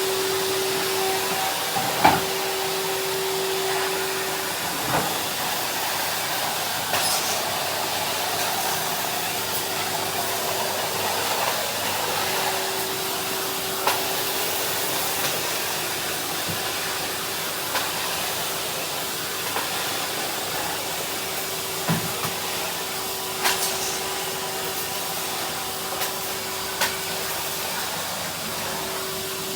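Henry cylinder vacuum cleaner running steadily, a constant rushing of air with a steady hum. A few sharp knocks and clicks, scattered through, come from the hose or nozzle striking things as it is pushed about.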